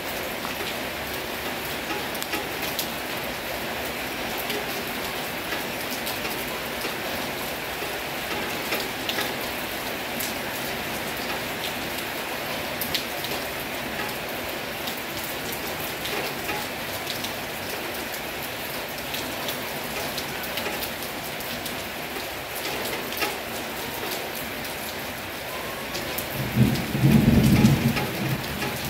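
Heavy rain falling steadily, with the sharp ticks of single drops striking close by. Near the end a loud, low rumble of thunder breaks in.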